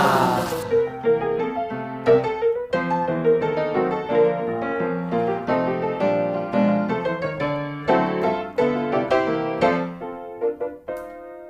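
Piano music, preceded by a brief noisy sound that cuts off suddenly just under a second in.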